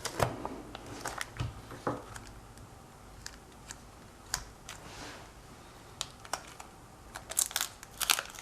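Scattered light clicks and taps from hands working on an iPhone 6 screen assembly, pressing air bubbles out of the liquid UV glue under the new glass. A quick run of taps comes near the end.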